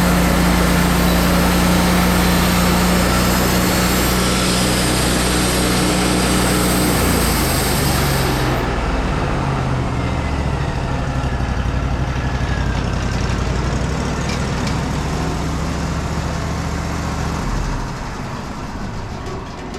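Wood-Mizer LT40 band sawmill running, its engine at speed while the band blade cuts through madrone with a bright hiss. About seven to eight seconds in, the engine's pitch drops and the cutting hiss stops; the engine keeps running more quietly and eases off again near the end.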